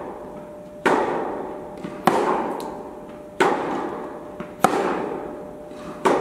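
Tennis rally in an indoor hall: racket strings striking the ball five times, about every second and a quarter, each hit echoing through the hall, with fainter knocks between the hits.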